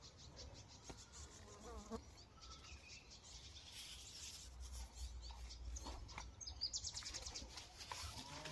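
Faint insects buzzing and chirring, with a quick repeating high pulse that grows stronger near the end.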